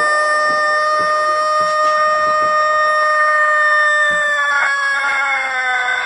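Rooster crowing one very long, drawn-out note that sounds like a siren wail, held at a level pitch and then sliding slowly down in pitch about four and a half seconds in.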